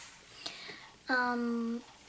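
A girl's voice holding one steady, unchanging syllable for under a second, a drawn-out hesitation sound like "umm", after a soft breath.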